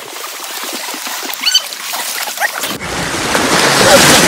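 River water splashing and churning around swimmers in life vests. The splashing is thin at first, then becomes loud and rushing from about three seconds in.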